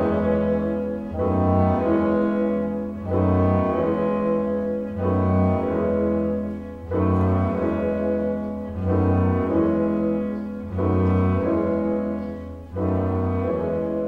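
Chamber ensemble of mixed winds, strings and piano playing a silent-film accompaniment. A short phrase of held chords over a low bass note repeats about every two seconds, then fades out at the end.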